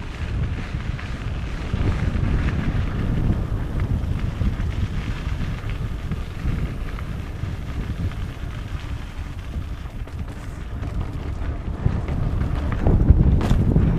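Wind buffeting the microphone of a camera on a moving mountain bike, with the rumble of tyres rolling over pavement and then a dirt trail. A single sharp knock near the end.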